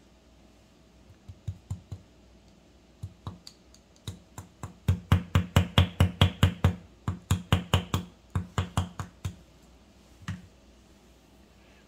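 Runs of small hard taps and clicks, about five a second at their quickest, from a metal watch-bracelet link being worked by hand with small tools to push out its pin. A last single click comes a little after 10 s.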